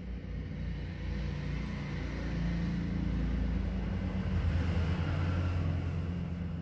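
A motor vehicle's engine passing by, a low hum that grows louder through the middle and starts to fade near the end.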